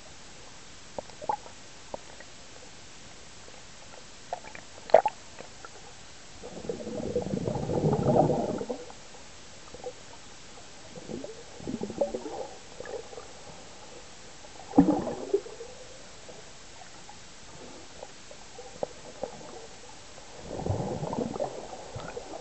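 Pool water heard underwater: muffled gurgling and sloshing surges of water, the longest lasting about two seconds, with others shortly after and one more near the end, and scattered small clicks between them.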